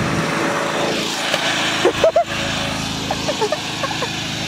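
Riding lawn mower engine running steadily, dropping away after about a second. A sharp knock comes about two seconds in, and short high-pitched calls follow near the end.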